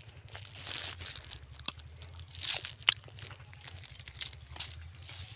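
Guava leaves and twigs rustling and crackling as they are handled, with a few sharp snaps.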